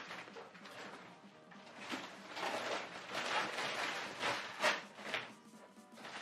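Gift-wrap paper rustling and crumpling as a wrapped cardboard box is unwrapped and handled, in a run of uneven bursts from about two seconds in to near the end.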